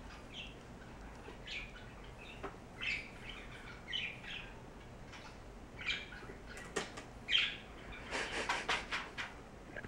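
Cardboard box rustling and scraping under cats' paws in short, scattered scratches, with a quick flurry of scrapes about eight seconds in as a cat climbs onto the box.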